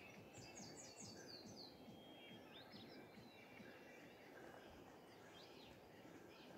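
Faint wild birds singing: a quick run of about six short, falling high notes in the first two seconds, then scattered chirps, over a quiet outdoor noise background.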